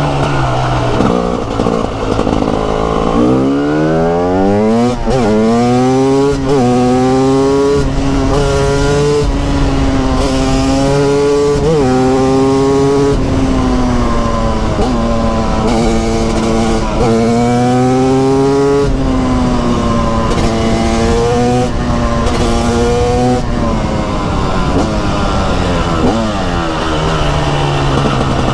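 TM SMR 300 single-cylinder two-stroke supermoto engine under way, revving up through the gears in quick successive climbs in pitch a few seconds in, then rising and falling with the throttle, and dropping in pitch near the end as it slows.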